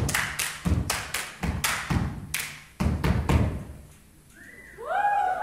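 Rhythmic stomping and clapping, about two to three hits a second, which stops about three and a half seconds in. Voices start up near the end.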